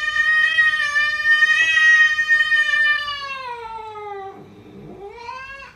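A cat meowing: one long drawn-out meow that rises, holds and then slowly falls, followed by a shorter rising meow that cuts off abruptly near the end.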